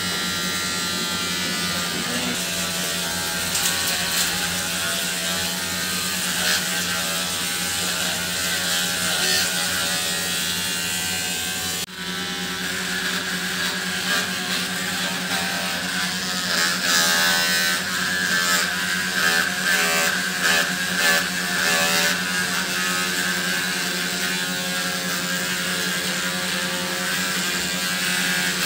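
Electric dog-grooming clippers buzzing steadily as they shear a dog's long coat, with a short break about twelve seconds in.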